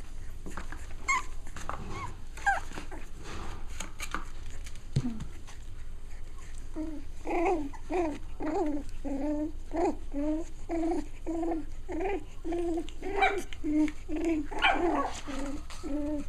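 Six-week-old Cavalier King Charles Spaniel puppies at play. After a few seconds of scuffling and small clicks, one starts a steady run of short barks about seven seconds in, two or three a second.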